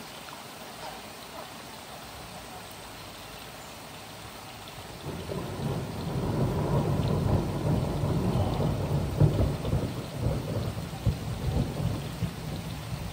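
Steady rain falling, then a long roll of thunder that starts about five seconds in, builds to a rumble with cracking peaks, and slowly dies away.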